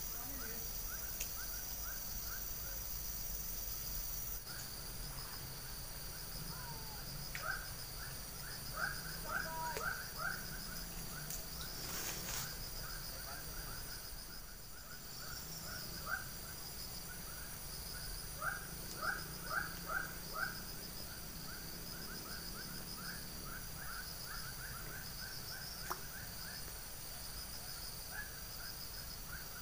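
Swamp ambience: a bird calling in quick runs of short notes, loudest twice in the middle, over a steady high pulsing insect drone.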